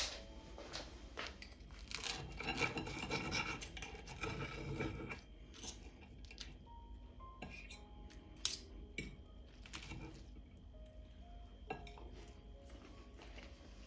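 A metal fork cutting through a pan-fried tortilla wrap on a ceramic plate: a scraping, rasping stretch of a few seconds as it cuts through the crisp crust, then scattered sharp clicks of the fork against the plate.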